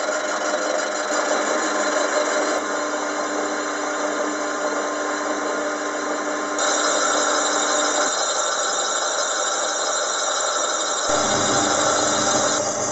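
Metal lathe running at 334 RPM with a boring bar feeding through a small moped cylinder at a fine 0.06 mm feed: a steady machine whirr with cutting noise. About a second and a half from the end the sound changes to a lower running noise as a hone works in the spinning cylinder.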